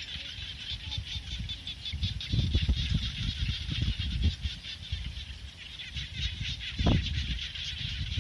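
Open-field ambience: a steady, high-pitched chorus of chirring and chirping from small field creatures, with wind rumbling on the microphone in gusts, strongest a couple of seconds in and again near the end.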